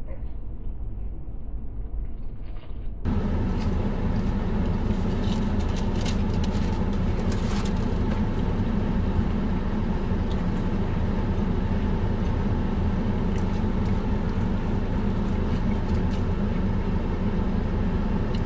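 Crunching and chewing of fried chicken with crisp skin over the steady hum of a car's running engine and air-conditioning inside the cabin. The hum gets suddenly louder and fuller about three seconds in.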